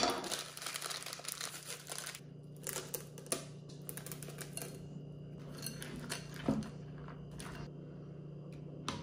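Plastic M&M's candy bag crinkling for about two seconds, then scattered light clicks as candy pieces are poured by hand into a glass bowl.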